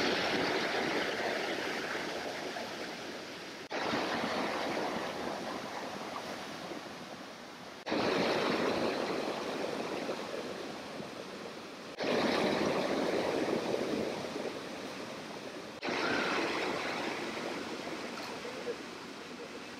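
Rushing water of a rocky creek tumbling over boulders in rapids, a dense steady rush. It comes in short takes that cut in abruptly about every four seconds, each starting a little louder and easing off slightly.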